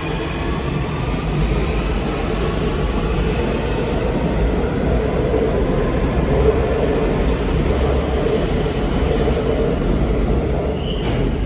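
Seoul Subway Line 4 electric train pulling out of the station, its wheels and running gear rumbling steadily as the cars go by the platform. There is a brief clatter near the end as the last car passes, and then the sound begins to fall away.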